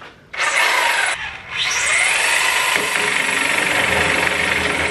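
Corded reciprocating saw (Sawzall-type) cutting into plywood. It starts with a short burst, stops briefly about a second in, then starts again, spins up with a rising whine and runs steadily.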